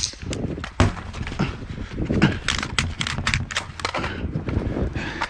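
5.56 rifle shots from a Geissele URG-I 14.5-inch AR-15, the first right at the start, mixed with the clatter and knocks of a fast magazine reload and the shooter moving.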